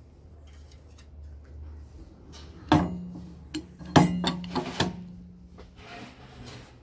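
The metal lid of a REHON K18 Mini OCA vacuum laminating machine's chamber is shut and its locking handle turned: two loud metal clanks about a second apart, several lighter knocks, and a low hum lingering after the first clank.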